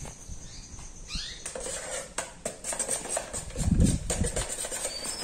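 Light clicks, taps and scrapes of small utensils and containers being handled, with a brief louder low sound about four seconds in.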